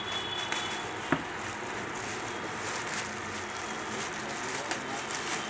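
Clear plastic wrapping crinkling and rustling as a sewing machine head is handled and turned, with scattered small crackles and one sharp click about a second in.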